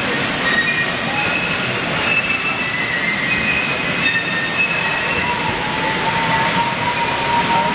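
H0-scale model freight train carrying lorries on low wagons rolling around a curve, with short high squeals from the wheels over a steady background noise. A thin steady tone joins about two-thirds of the way through.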